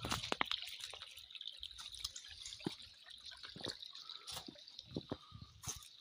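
Small shallow stream trickling over stones, with irregular drips and plops.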